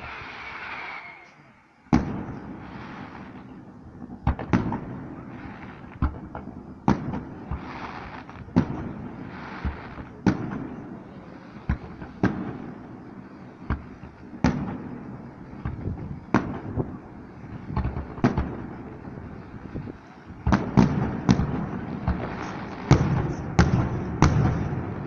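Aerial fireworks display: a steady run of sharp bangs, about one or two a second, each trailing off in an echo, building into a dense, louder volley near the end.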